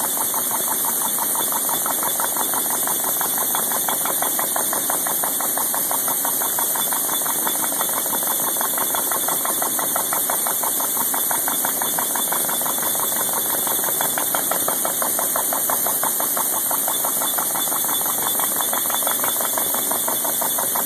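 CNC milling cutter side-milling a flat on the edge of a large metal gear ring, a steady cut with a fast, even pulse from the cutter's teeth striking the work.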